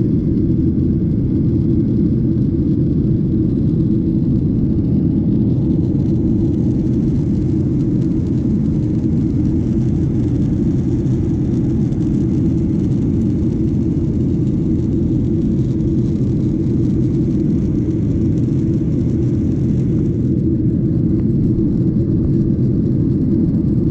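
Steady low rumble of jet engines and rushing air, heard from inside the cabin of a jet airliner in flight.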